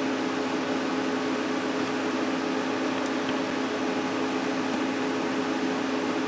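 Steady fan hum with a whir, holding two even tones without change.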